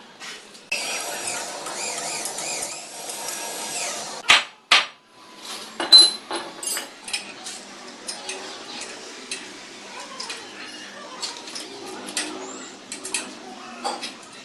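Metal tools and parts clinking and knocking as they are handled, with three loud sharp strikes about four to six seconds in and many lighter clicks after.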